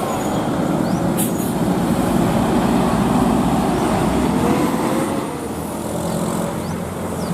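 A bus driving past. Its engine and road noise swell to their loudest about three seconds in, then ease off.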